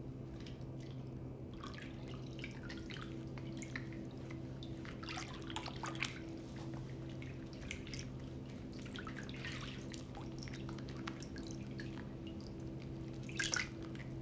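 Water dripping and splashing lightly in small, irregular spatters, with a louder splash near the end, over a steady low hum.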